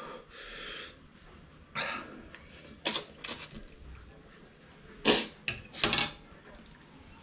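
A man eating extra-spicy instant noodles: loud slurps and sharp, hissing breaths through pursed lips, in several short bursts, the loudest about five and six seconds in.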